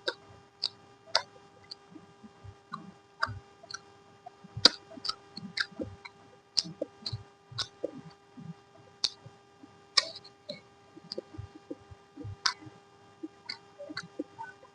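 Close-up eating sounds: a person chewing with irregular wet smacks and clicks of the mouth, some a second or more apart, some in quick clusters. A faint steady hum runs underneath.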